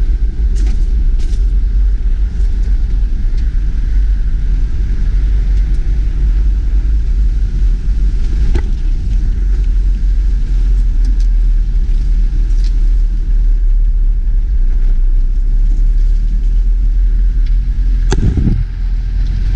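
A car's engine and tyres running steadily at low speed on a gravel track, a continuous low rumble with scattered light clicks. There is a sharp knock near the end.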